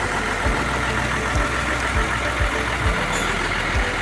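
A vehicle engine idling steadily, with a low thump every half second to a second.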